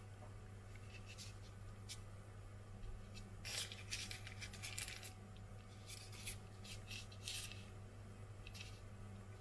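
Faint rustle and crinkle of baking parchment as fingers pinch the corners of puff pastry parcels closed, in short scattered bursts that are busiest in the middle, over a steady low hum.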